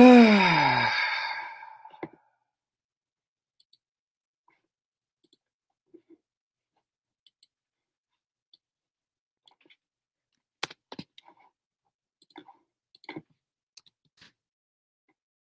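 A man's voice sliding down in pitch for about a second, like a drawn-out groan, then scattered light clicks over the last few seconds.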